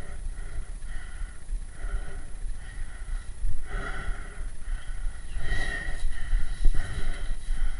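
Rapid, heavy breathing by a paintball player, about two breaths a second, with two louder breaths about four and six seconds in.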